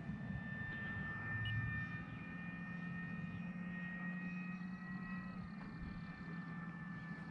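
Electric RC airplane's motor and propeller whining in flight at a distance, a steady high tone that drifts slightly in pitch as the plane moves, over a low rumble.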